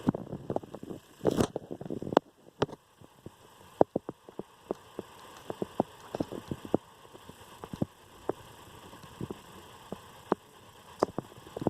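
Scattered small clicks and taps, irregular and a few of them sharp, from hands and tools handling parts of a VCR's tape mechanism.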